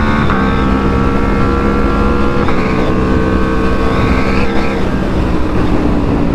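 Aprilia RSV4's V4 engine running through a full aftermarket titanium exhaust at a steady riding pace, with three brief breaks in the engine note about two seconds apart and the revs easing down near the end. A low wind rumble runs underneath.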